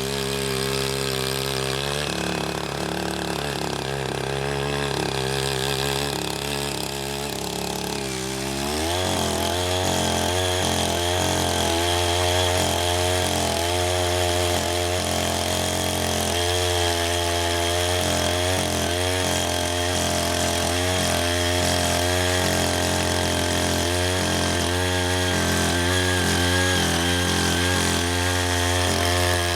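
Small engine of a walk-behind rotary tiller running at low speed, then revving up about eight seconds in and holding steady at the higher working speed.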